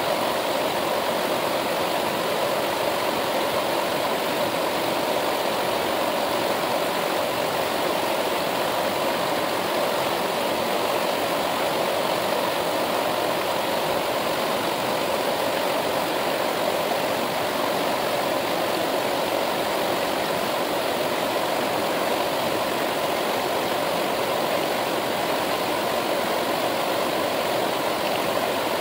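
Steady rushing of a mountain river's flowing water, an even noise that holds at the same level throughout.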